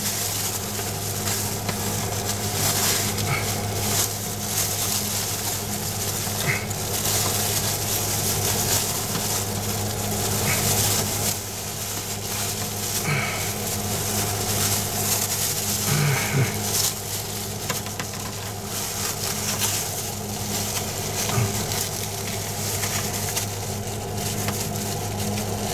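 Clear plastic-bag gloves crinkling and rustling as hands press and work resin-wet fiberglass cloth into place, over a steady low hum.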